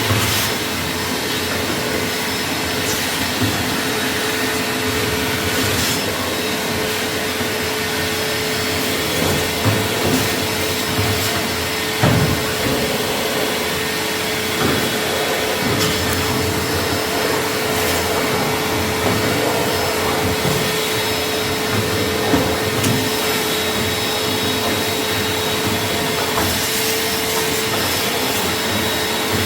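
A motor running steadily, with a constant hum and a noisy whir, and scattered light knocks and clicks.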